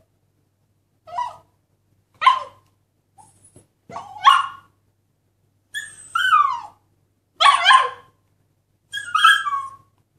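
Siberian husky puppy barking in a string of short, high yips, about one a second, several sliding down in pitch like whines.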